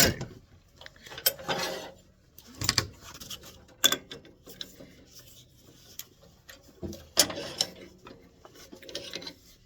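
Intermittent clicks, scrapes and rattles from handling the metal parts of a wood lathe, coming in a few short clusters with quiet gaps between.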